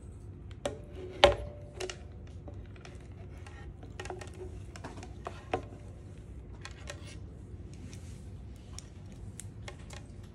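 Handling noise of a small plastic QR code display stand and its USB cable being moved about and set on a wooden desk: scattered clicks and light knocks, with one sharp knock a little over a second in.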